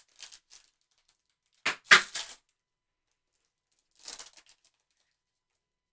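Trading cards and a foil card-pack wrapper handled with gloved hands: a few short crinkling, crackling rustles, the loudest about two seconds in and another cluster near the four-second mark.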